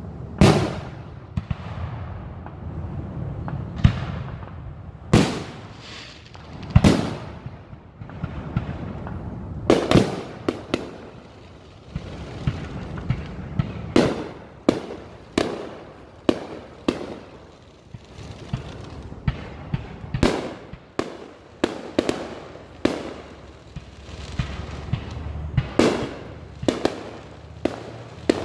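Aerial fireworks shells bursting in a quick, irregular series of sharp bangs with a low rumble between them. The bangs come faster and closer together in the second half.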